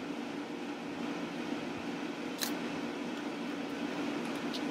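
Steady low background hum, with one sharp click about halfway through and a fainter click near the end as small plastic parts of a TI-84 graphing calculator are pried and handled with a tool.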